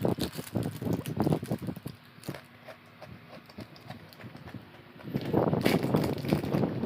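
Close-up chewing and mouth sounds of someone eating: quick wet clicks and smacks, easing off for a few seconds and then growing louder and denser about five seconds in.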